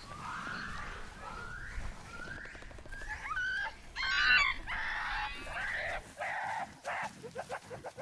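Several monkeys calling: a series of rising hoots, building to loud shrill screams about four seconds in, then shorter calls.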